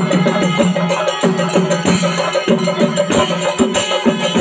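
Chenda melam: a group of chenda drums beaten with curved sticks in a fast, steady, repeating rhythm, with ringing tones sounding over the beats.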